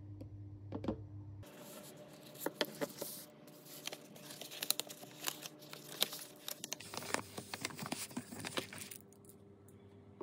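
Paper wrapper and aluminium foil of a chocolate bar crinkling and crackling as they are unfolded by hand, starting about a second and a half in and stopping about a second before the end. First come a few light taps of a plastic scoop against a shaker cup over a low hum.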